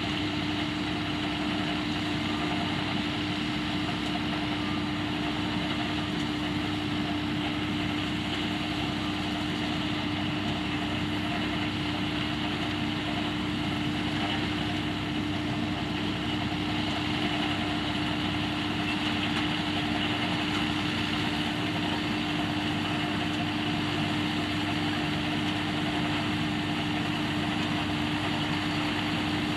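Diesel-powered potato harvesting machinery running steadily: engine and mechanism noise with a constant hum.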